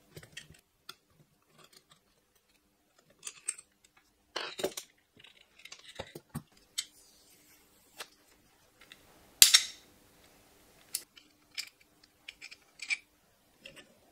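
Scattered clicks and clinks of small metal parts and hand tools being handled while the X-axis assembly of an Ender-3 V2 3D printer is taken apart. The loudest is a single sharp clack about nine seconds in.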